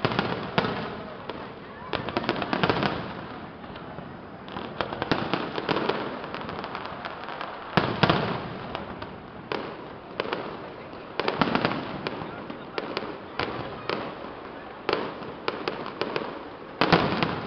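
Fireworks display: aerial shells bursting in repeated bangs, some in quick clusters, with the loudest bursts about eight seconds in and again near the end.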